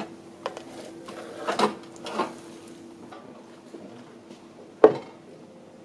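Rice paddle knocking and scraping against a black clay rice pot as steamed rice is scooped out into a wooden sushi tub. There are a few soft knocks, then one sharp knock near the end, which is the loudest.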